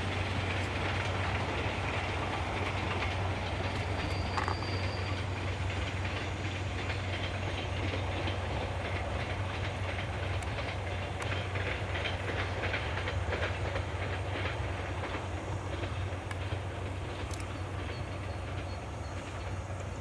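Passenger train running past: a steady low rumble with the clickety-clack of wheels over rail joints, easing off slightly over the last few seconds.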